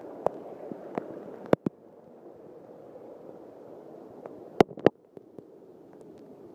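Steady wash of heavy rain and floodwater runoff, with a few sharp clicks; the loudest come in a pair about a second and a half in and another pair about four and a half seconds in.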